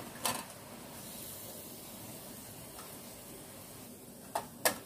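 Cassava pieces sizzling steadily in deep oil as they are lifted out, with a utensil click soon after the start and two more near the end.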